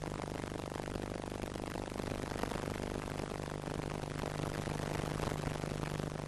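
Steady low hum with an even hiss behind it, unchanging throughout, with no distinct events.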